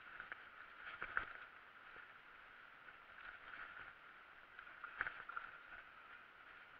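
Mountain bike rolling over a dirt singletrack: a faint steady rush of tyres with a few sharp knocks and rattles from bumps, the loudest about a second in and again about five seconds in.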